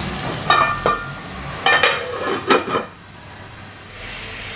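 Prawns sizzling in butter in a nonstick kadai. About five metal clinks and clanks ring out in the first three seconds as a steel lid is handled over the pan. The sizzle drops for a moment about three seconds in, then comes back up.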